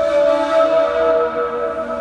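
Ney flute playing a slow melody of long held notes, with lower notes entering about half a second in and again near the end.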